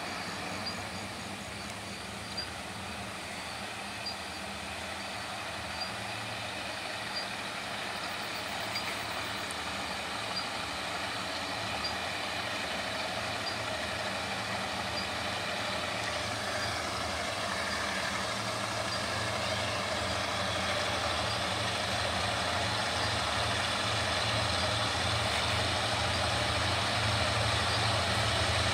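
Diesel locomotives of an approaching freight train, a steady low engine drone that grows slowly louder as they draw near.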